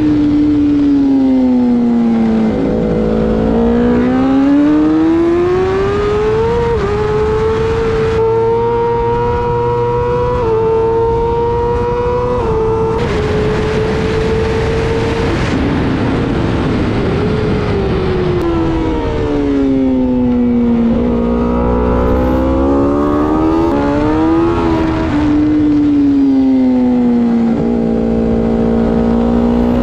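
BMW M1000RR superbike's inline-four engine at race pace, revving up through the gears on the straights and dropping revs for the corners several times, over steady wind rush.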